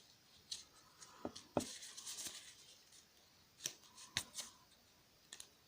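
Scattered sharp clicks and taps of small metal tools and phone parts being handled during a smartphone teardown, a handful of separate clicks spread over a few seconds.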